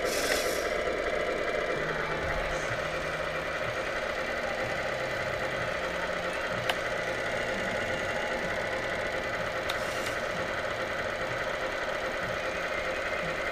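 1/14 scale radio-controlled semi truck running on the workbench under transmitter control, a steady mechanical whir with low tones that shift in pitch as the controls are worked. One sharp click about 7 s in.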